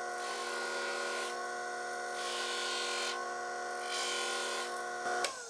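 Small hobby bench grinder with a cotton buffing wheel running with a steady whine, and a rubbing hiss that comes and goes as the wheel is passed lightly across a watch crystal. Near the end the motor is switched off and its whine falls in pitch as it spins down.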